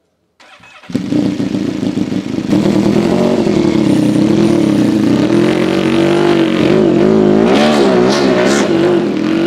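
Honda RC213V-S V4 motorcycle engine idling, coming in suddenly about a second in. In the last few seconds the throttle is blipped several times, the pitch rising and falling quickly with each blip.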